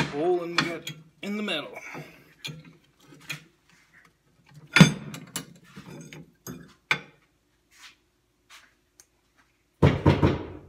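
Steel rebar and a drill-press vise being handled: scraping and clicking as the rod is worked loose from the vise jaws, a loud metal knock about five seconds in, and a heavy clank near the end. The drill press is not running.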